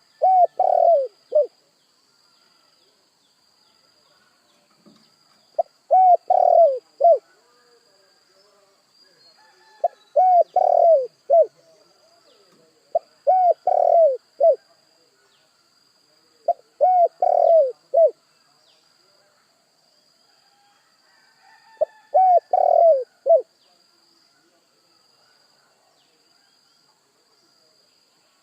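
Spotted dove cooing: six short phrases of three or four low hooting notes each, spaced a few seconds apart.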